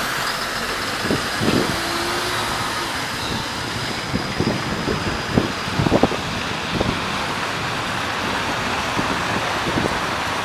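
Traffic on a wet city street: a steady hiss of tyres and vehicle running noise. Irregular low thumps cluster in the middle.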